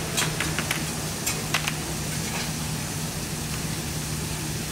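Busy food-court ambience: a steady low hum under a noisy din, with scattered clicks and clinks of trays and dishes, most of them in the first couple of seconds.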